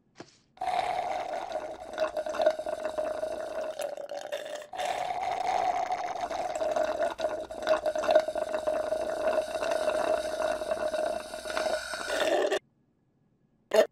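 Drink slurped through a straw from the bottom of a cup of ice, a cartoon sound effect: one long slurping noise with a short break a little before five seconds in, cutting off suddenly near the end.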